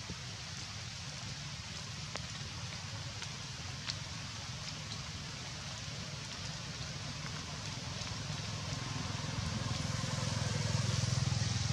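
Steady outdoor background noise with a low rumble that grows louder over the last few seconds, and a few faint clicks.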